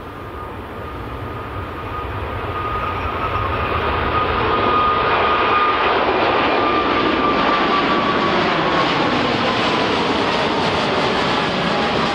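Airliner engines passing close by: the noise grows louder over the first five seconds or so, then holds, with a high whine sliding slowly down in pitch.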